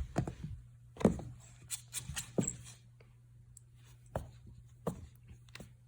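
A pet at play making a few short, sudden sounds a second or so apart, the loudest about a second in, over a steady low hum.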